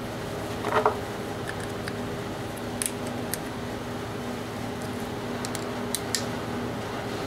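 Light metal clicks and taps as a small wrench tightens the float-bowl nut on a clone small-engine carburetor, over a steady background hum. A brief, louder noise comes about a second in.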